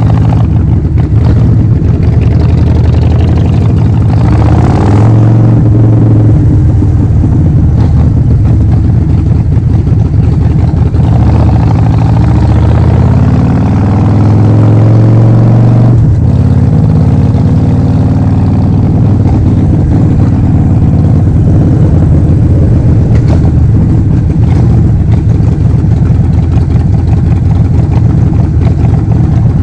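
Harley-Davidson Forty-Eight's 1200 cc V-twin running loud through a Vance & Hines full exhaust system, its pitch climbing under throttle a few times. About halfway through, a long climb ends in a sudden drop as the throttle closes, and the engine then runs on steadily.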